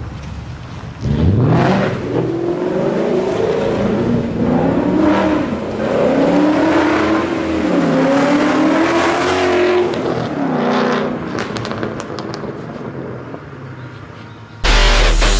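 2011 Ford Mustang GT's supercharged 5.0-litre V8, fitted with a Bassani full exhaust with headers and X-pipe, accelerating hard about a second in. The exhaust note then rises and falls in pitch as the car revs up and eases off repeatedly, before fading away. Music cuts in near the end.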